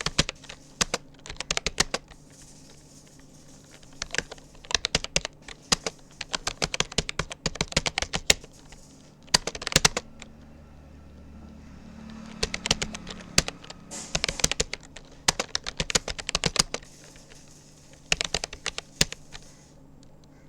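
Typing on a Rapoo computer keyboard: rapid runs of key clicks in bursts, pausing briefly about two seconds in and again around the middle.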